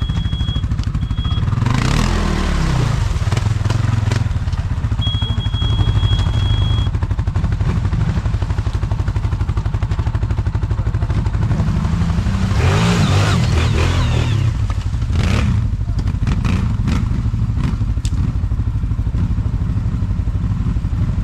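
ATV (quad bike) engine running with a steady low drone, revving up about two seconds in and again around twelve to fourteen seconds in, with scattered clatter and knocks.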